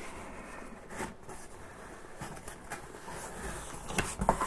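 Hands handling small hardware and packaging: light rustling with scattered small clicks and knocks, one every second or so.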